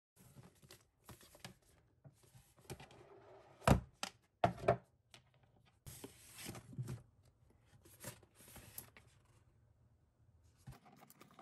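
Books and boxed albums being slid off a shelf and handled: scattered scrapes, cardboard rustling and light knocks, with the sharpest knocks about four seconds in.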